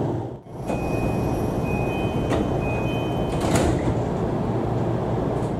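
Door-closing chime of a JR East E233-series commuter train at a station stop: a short two-note electronic chime sounds three times, with a sharp knock after the second chime and another near the end of the third as the sliding doors shut, over the steady low rumble of the train.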